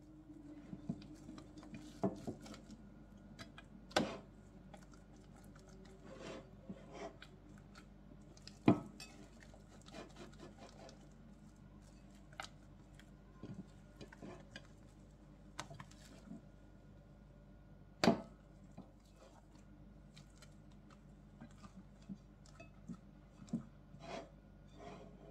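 Hands folding oiled bread dough in a glass baking dish: quiet handling sounds of the dough, with a few sharp knocks against the glass dish, the loudest about 4, 9 and 18 seconds in.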